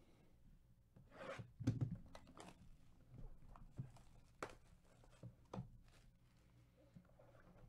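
Plastic shrink wrap being torn and crumpled off a sealed trading-card hobby box: faint, scattered crinkles and tearing crackles, the loudest about one to two seconds in.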